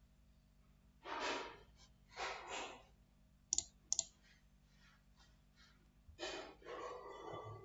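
A person breathing out heavily close to the microphone, several long breaths, with two sharp computer-mouse clicks in between, about three and a half and four seconds in.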